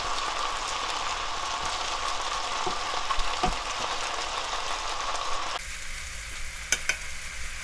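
Seasoned bracken fern sizzling as it stir-fries in a frying pan, its released liquid bubbling away in a steady hiss. The sizzle drops abruptly quieter about two seconds before the end, followed by two sharp clicks close together.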